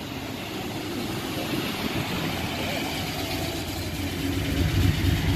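Mazda RX-7's rotary engine running as the car rolls past at low speed, getting louder near the end as it comes close.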